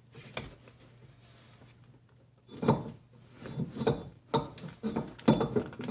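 Metal hand tools clanking and knocking against metal parts: a faint scrape, then, about halfway through, a run of irregular sharp clanks and clinks.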